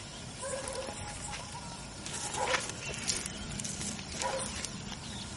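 Faint outdoor background with a few short animal calls, about two seconds apart.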